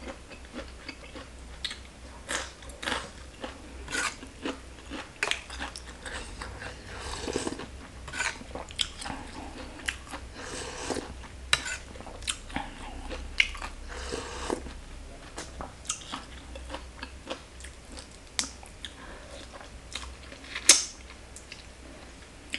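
Close-miked eating of green papaya salad and raw vegetables: repeated crisp bites, crunching and wet chewing, with one louder sharp snap near the end.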